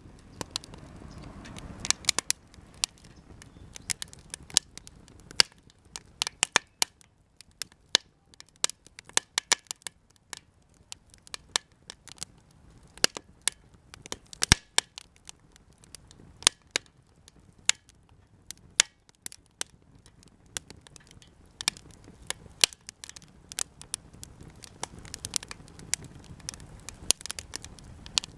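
Japanese cedar offcuts burning in a campfire, crackling with sharp, irregular pops, often several a second. A soft low rush of flame sits under the pops, stronger at the start and again near the end.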